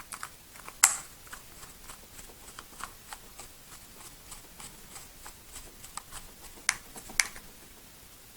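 Small clicks and ticks of a grip screw being driven into a pistol's grip panel by hand, with a sharper click about a second in and two more near the end.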